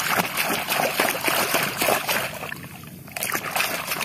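Water splashing as a hand swishes a small plastic toy bus back and forth in shallow water to wash the mud off it, in a quick run of splashes with a brief lull about two-thirds through.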